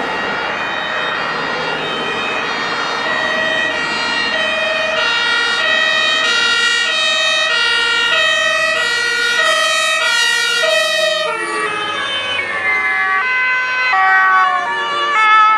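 German two-tone emergency-vehicle siren (Martinshorn) alternating high and low notes at a steady pace, over the vehicle's road noise. About eleven seconds in, the pitch drops sharply as the vehicle passes by, and the alternating notes carry on lower.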